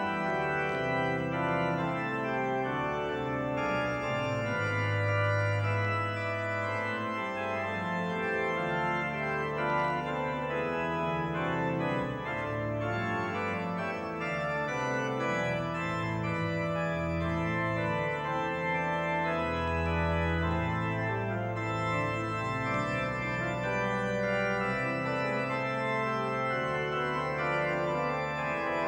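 Pipe organ playing a solo piece: sustained full chords over low held bass notes that change every second or two.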